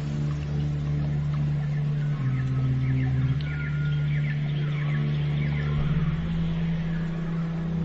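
Slow ambient meditation music: low sustained notes that shift to new pitches every couple of seconds, with short high chirps scattered over them.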